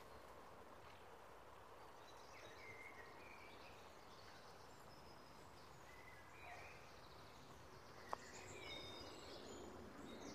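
Faint woodland birdsong: small birds chirping and trilling in short phrases, over a quiet background hiss. A single sharp click about eight seconds in.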